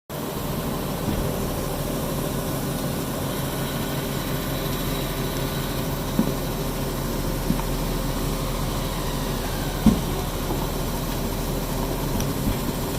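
Front-loading washing machine running with a load of diapers: a steady machine hum with a few short thumps from the tumbling load, the loudest about ten seconds in.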